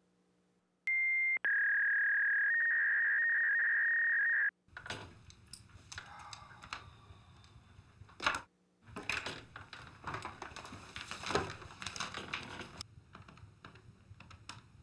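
A steady, high-pitched electronic beep tone held for about three and a half seconds after a short first beep, then stopping abruptly, followed by scattered clicks, knocks and rustling as a corded desk phone is handled.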